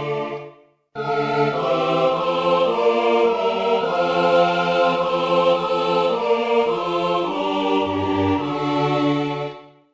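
Four-part choir (soprano, alto, tenor, bass) singing a slow chordal German choral setting in block chords, breaking off briefly about half a second in and again fading at the end of a phrase.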